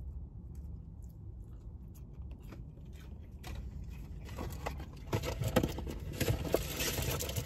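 Rustling and crinkling of food packaging being handled, starting about halfway through and growing louder, over a low steady hum.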